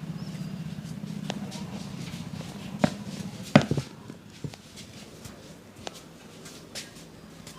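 Several sharp smacks and clicks from hands working a massage, the loudest about three and a half seconds in, over a low steady hum that fades out around four seconds.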